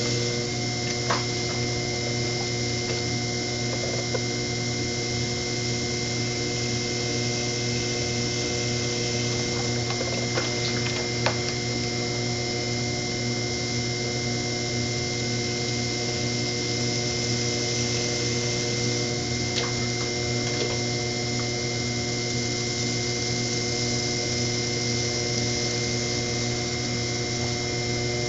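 Electric potter's wheel motor running with a steady hum, and a few faint clicks.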